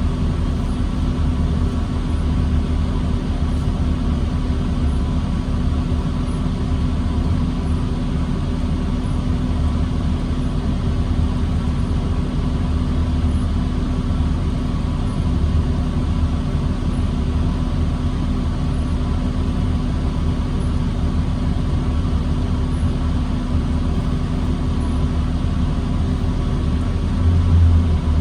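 Diesel engine of a New Flyer D40LFR transit bus running steadily in stop-and-go traffic, heard as a constant low drone with a steady hum over it.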